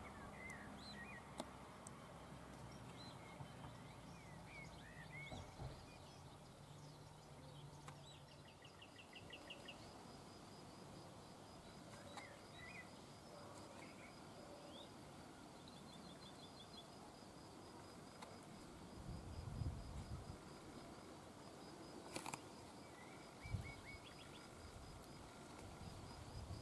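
Quiet outdoor background with faint, scattered chirps and short trills of small birds and a steady, high, rapid ticking from about a third of the way in. A few low rumbling bumps come near the end.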